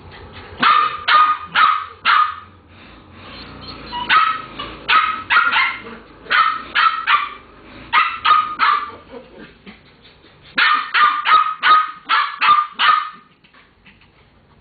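Small dogs barking while they play: sharp, high barks in quick runs of several at a time, with short pauses between runs, stopping shortly before the end.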